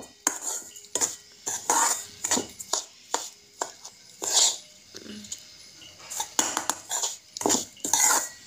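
Metal spoon scraping and clinking against a steel kadai while semolina is stirred and roasted in oil. Irregular taps, with a few longer, louder scrapes as the spoon sweeps through the pan.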